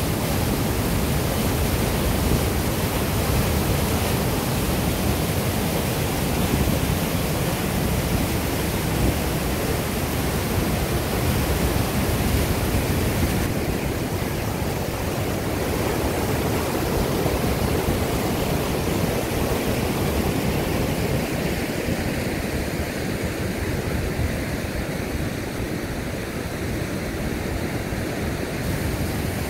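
Whitewater of a small river waterfall rushing steadily through a rock channel and over a weir. The high hiss thins somewhat about halfway through and again in the last third, leaving more of a lower rush.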